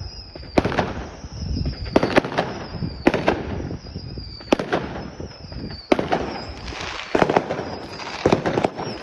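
Fireworks going off: a series of sharp bangs about a second apart, several followed by a thin high whistle that falls slowly in pitch.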